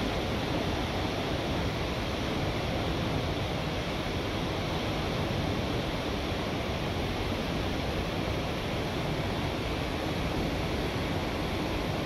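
Steady, unbroken rush of falling water from a tall waterfall.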